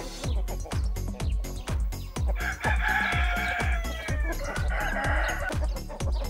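A rooster crows once, a call of about three seconds starting a couple of seconds in and falling in pitch toward its end. Background music with a steady bass beat runs under it.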